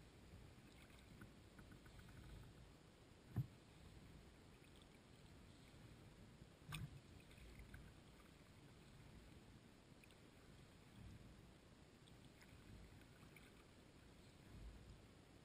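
Faint water sounds around a kayak drifting and paddling on a calm river, with a sharp knock against the boat about three seconds in and a softer one a few seconds later.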